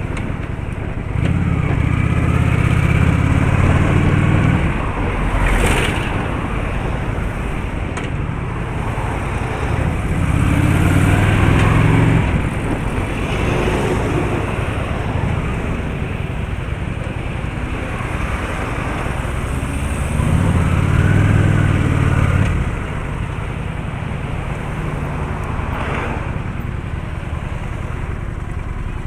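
Road traffic noise with motor vehicle engines running, swelling louder three times as vehicles pass or accelerate: about a second in, around ten seconds, and around twenty seconds.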